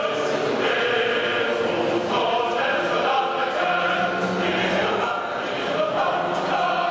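Choral music: many voices singing long held notes.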